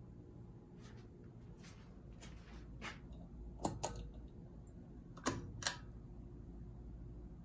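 Harbor Breeze Tahoe ceiling fan running with a faint steady hum, over which come a series of sharp clicks, the loudest in two quick pairs about four and five and a half seconds in.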